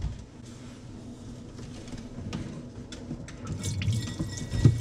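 Water left inside a kitchen mixer tap draining out of its disconnected cold tap tail after the cold tap is opened, dripping and then running and splashing onto the pipework below near the end. A knock right at the start.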